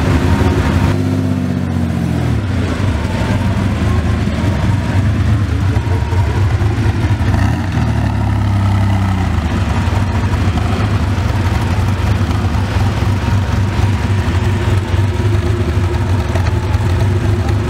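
Porsche 930 Turbo's air-cooled flat-six running at idle, heard close to the exhaust. Twice the engine speed falls back down to idle after being raised: near the start and again about halfway through.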